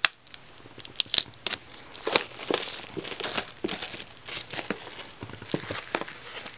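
Plastic shrink wrap being cut and torn off a boxed CD album, a few sharp clicks in the first second and a half, then steady crinkling and tearing as the wrap is peeled away.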